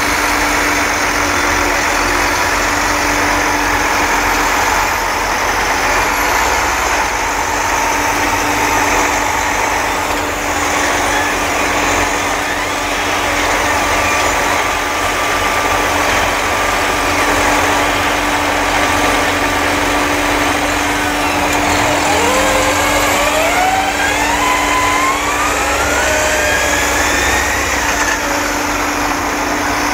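Farm diesel engines running steadily under a constant steady tone. About two-thirds of the way through, one engine speeds up, its pitch rising over several seconds.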